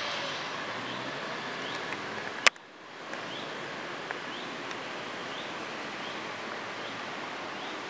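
Steady street noise of passing fire-service vehicles, with a low engine hum that ends at a sharp click about two and a half seconds in. After it comes a steady outdoor hiss with faint, short rising chirps repeating.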